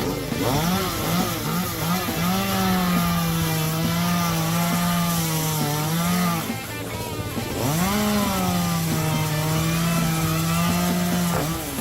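Chainsaw engine blipped a few times, then held at high revs cutting wood for about four seconds. The engine drops back briefly midway, revs up again and runs steady through a second cut, then cuts off near the end.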